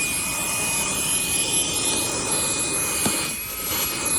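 Fanttik Slim V8 APEX cordless car vacuum running at max speed through its hose attachment: a steady high-pitched motor whine over a rush of air. A light knock comes about three seconds in.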